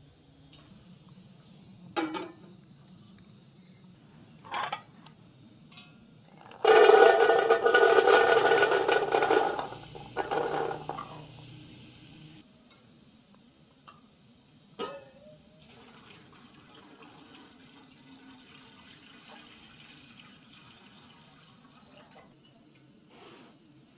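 Dried chickpeas tipped from a bowl into a metal cooking pot: a loud rattling rush lasting about four seconds, starting a third of the way in. A few light clinks of utensils before and after.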